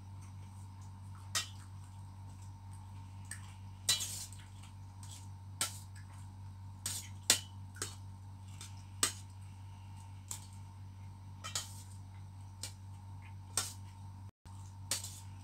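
Metal spoon clinking and scraping against a stainless steel bowl while eating, about a dozen short, irregular clinks over a steady low hum.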